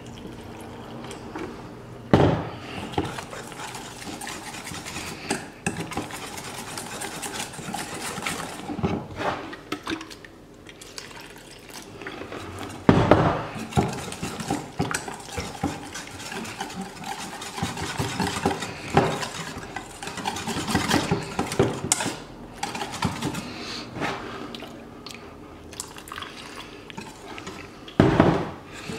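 Wire whisk beating flour, spice and water into a batter in a stainless steel bowl as water is poured in from a jug: a steady run of clinks and scrapes of the wires against the metal, with three louder knocks.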